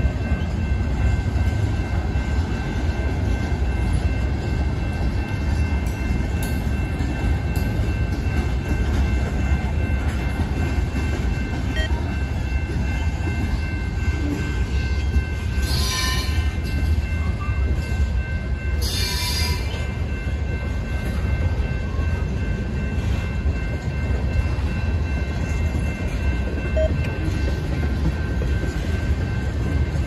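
Freight train of boxcars and tank cars rolling steadily past a grade crossing: a continuous low rumble of wheels on rail, with the crossing signal's bell ringing on a steady high tone throughout. Two brief high hisses about midway, some three seconds apart.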